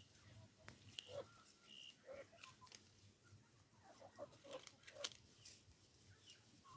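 Backyard chickens clucking quietly in short, scattered calls, with sharp little clicks in between.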